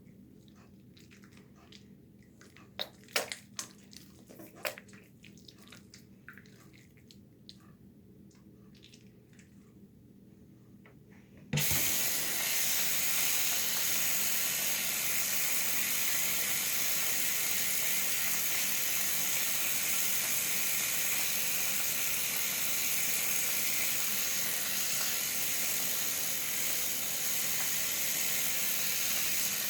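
A few small clicks and knocks, then a tap is turned on about a third of the way in and water runs steadily into a sink.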